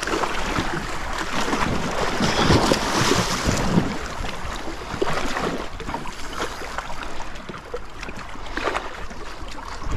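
Water splashing and sloshing, busiest in the first four seconds, then a lighter lapping.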